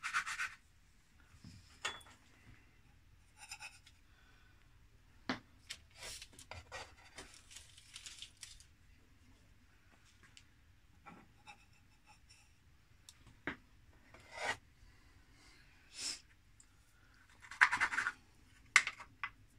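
Intermittent scraping and rubbing with a few short, sharp taps: biscuit dough being pressed and worked by hand and with a utensil. A louder rustling scrape comes near the end.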